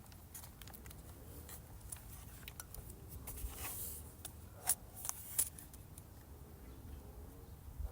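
Small clicks and scrapes of hands working at a Sony Vaio laptop during disassembly, with two sharper clicks about five seconds in.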